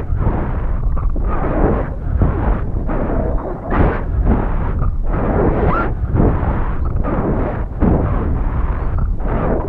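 Wind buffeting the microphone of a high-altitude balloon payload falling under its parachute: a loud, gusty rushing rumble with constant surges.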